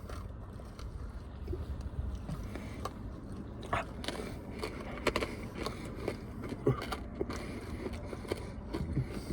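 Chewing sour candy: scattered small clicks and crunches over a low steady rumble.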